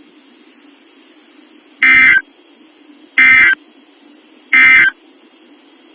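Three short bursts of EAS SAME digital data tones on NOAA Weather Radio, about 1.4 s apart, with a faint steady receiver hiss between them. They are the end-of-message code that closes the Shelter In Place Warning alert.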